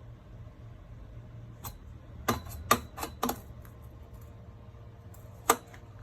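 Hard plastic parts of a portable toilet chair clicking and knocking as they are handled and fitted together: a quick run of four clicks in the middle and one sharp knock near the end.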